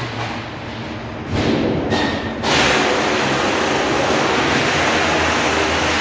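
Sheet-steel cutting machine working, with knocks and clatter at first. About two and a half seconds in, a loud steady hiss starts and then cuts off suddenly near the end.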